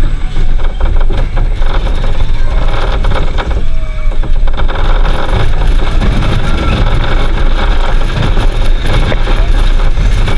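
Zierer Force Zero family roller coaster train running along its steel track, its wheels rumbling and rattling continuously, heard from aboard the train with heavy low wind noise on the microphone.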